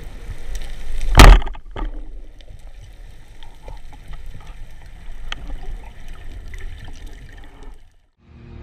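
Underwater sound from a diver's camera housing: faint clicking and crackling over a low water hiss. A loud, sharp knock comes about a second in, with a weaker one just after. The sound cuts out briefly near the end.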